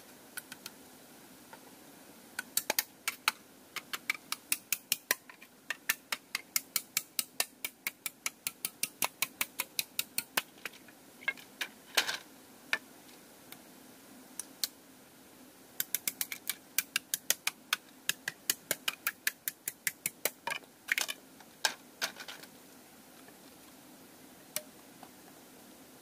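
A bamboo pole being worked and split, giving fast runs of sharp cracking clicks, about three or four a second. There are two long runs with a pause between them.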